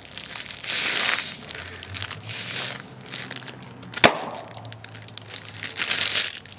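A large bag being crinkled and squeezed in several bursts, then one sharp pop about four seconds in as it bursts, followed by more crinkling.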